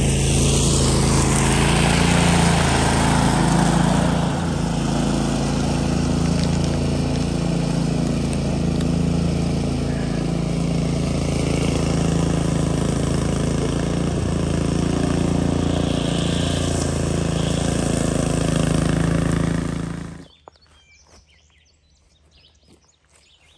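Walk-behind DR Field & Brush Mower engine running steadily at working speed, then stopping abruptly about twenty seconds in.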